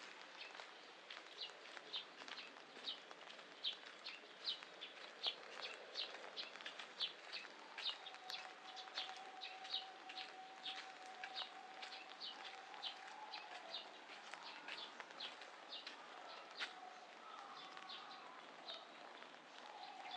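A small bird chirping over and over in short high notes, a couple a second, over a steady patter of rain. A faint steady hum sets in about eight seconds in.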